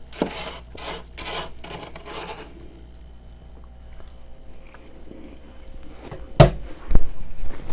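Frost being scraped from the walls of a home freezer: about five quick rasping strokes, then quieter rustling. Near the end come a sharp crack and a thump.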